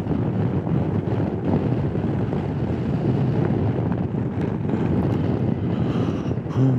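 Wind rushing over the microphone on a moving Honda Forza 250 maxi scooter, with its engine and road noise underneath as a steady rush. Near the end a steady pitched hum sets in.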